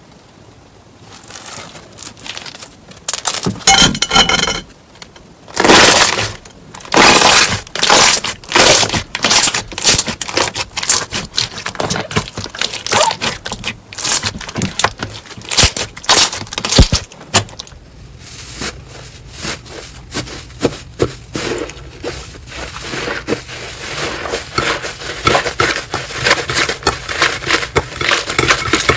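Slime being squeezed and pressed, giving loud crunchy crackles and sharp pops in quick, uneven runs. The crackle becomes denser and steadier near the end.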